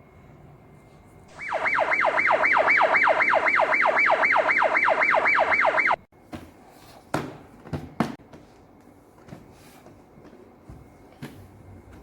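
Electronic toy siren sounding in quick, repeated falling sweeps, about three or four a second, for roughly four and a half seconds, then cutting off suddenly. A few light plastic clicks and knocks follow.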